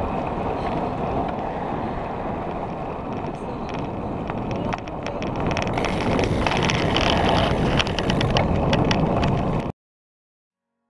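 Wind buffeting the microphone of a handlebar-mounted camera on a moving road bike, mixed with tyre and road noise, and a rattle of clicks in the second half. It cuts off suddenly about a second before the end.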